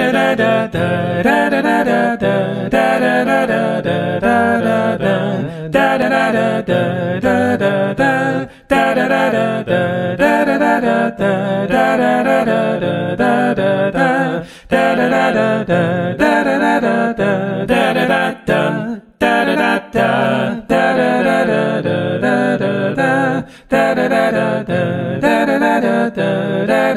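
Sung theme song: a vocal jingle running in phrases, with short breaks between them.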